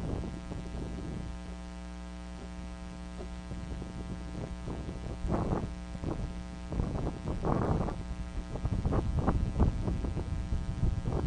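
Steady electrical hum on the nest camera's audio, with brief rushing whooshes as a bald eaglet flaps its wings, about five seconds in and several more in the second half.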